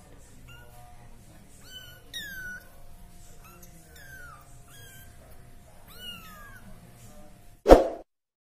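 Young local-Persian kittens mewing repeatedly: about eight thin, high mews, each falling in pitch. Near the end a short, loud burst of noise cuts in.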